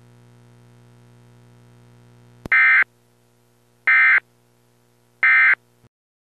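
Emergency Alert System end-of-message code: three identical short bursts of warbling digital data tones, about 1.3 s apart, starting about two and a half seconds in. They mark the end of the alert. Before them, a steady low electrical hum.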